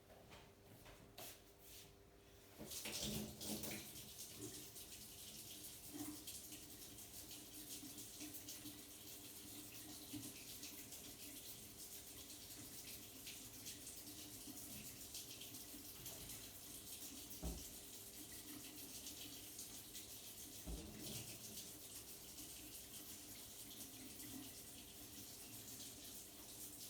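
Water running steadily from a tap, starting about two and a half seconds in, with a couple of small knocks from handling parts.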